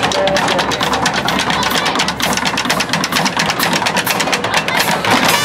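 Marching drumline playing a cadence: rapid snare drum strokes over Pearl bass drums struck with mallets.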